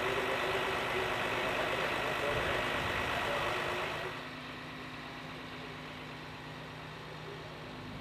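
Outdoor auction crowd din with a faint, wavering auctioneer's voice, then, about four seconds in, a quieter steady low engine hum with an idling tone, muffled as if heard inside a tractor cab.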